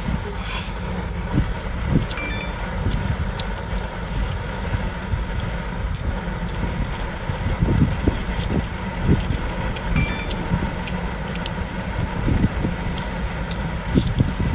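Steady wind noise on the microphone, with short wet clicks and thumps of someone biting, chewing and sucking on a whole cooked octopus.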